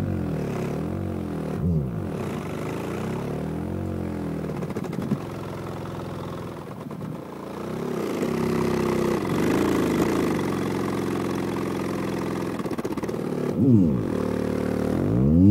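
Obsidian Audio 18-inch v2 subwoofer playing low test tones: a deep, buzzy tone that glides down and up over and over, holds steady for a few seconds in the middle, then rises quickly and cuts off abruptly at the end.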